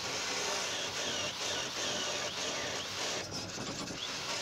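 Corded electric hand drill mounted in a drill-press stand, turning an 18 mm twist bit that is cutting into steel sheet. It makes a steady cutting noise with repeated short squeaks from the bit, easing off briefly about three seconds in.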